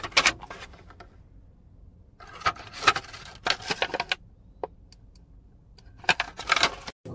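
Clear plastic packaging around a pair of swimming goggles handled, giving irregular crinkles and clicks in three bursts: at the start, around the middle, and near the end.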